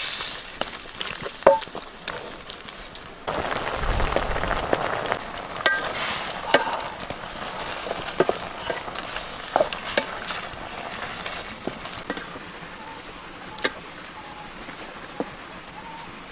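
Frog meat and vegetables sizzling in a wok, stirred with a wooden spatula that clicks and scrapes against the pan. The sizzle swells for a couple of seconds about three seconds in and is lighter near the end.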